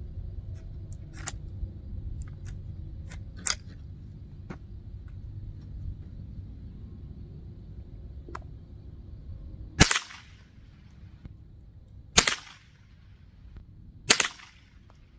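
.22 LR rifle fired three times, about two seconds apart, in the second half: sharp cracks, each with a short ringing tail. Fainter clicks and ticks come before the shots.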